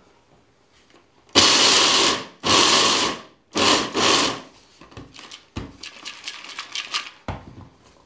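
Electric blade grinder chopping shelled peanuts in short pulses, starting about a second and a half in, with several loud bursts and quieter bursts later on. The peanuts are being chopped only coarsely, not to a flour.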